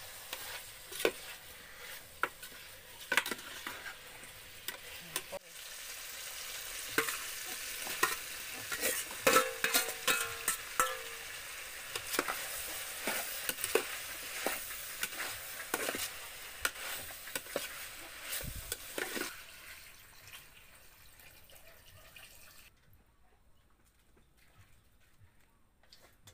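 Food sizzling as it fries in a pan, stirred with a utensil that clicks and scrapes against the pan many times. The sizzling and stirring die away about three-quarters of the way through.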